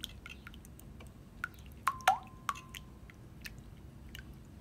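Hand whisk beating two raw eggs in a bowl: a run of small, irregular wet clicks and splashes, with a few sharper taps around two seconds in where the wires strike the bowl and it rings briefly.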